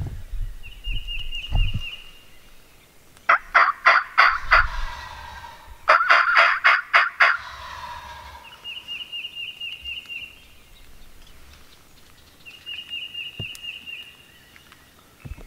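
Wild turkey gobbling twice, a couple of seconds apart, each gobble a rapid rattling run of notes. A songbird's short high trill repeats three times.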